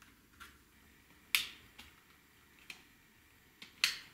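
Sharp plastic snaps and clicks from a Digital Compact Cassette shell being worked back and forth by hand to pop it apart. There are two loud snaps about two and a half seconds apart, with fainter clicks between them: the brittle prototype shell cracking.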